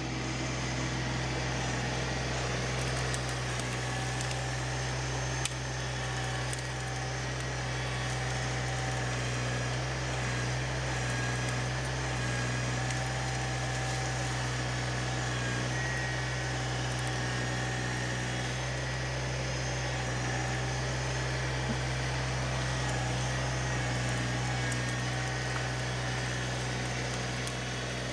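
LS MT125 compact tractor's 25-horsepower diesel engine running steadily as the tractor drives its loader grapple into a brush pile.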